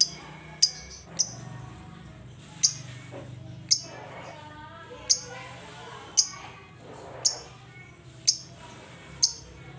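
A lovebird repeating sharp, short, high-pitched chirps about once a second, over a steady low hum.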